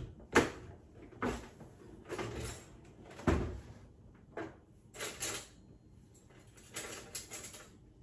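A series of short knocks and clatters of kitchen cupboards and drawers being opened and shut while someone rummages, about eight sharp knocks at irregular intervals.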